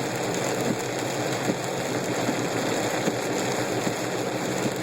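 Heavy rain beating on a moving car, with a steady rushing hiss of rain and road spray, scattered sharp drop ticks and a faint engine hum underneath, heard from inside the car.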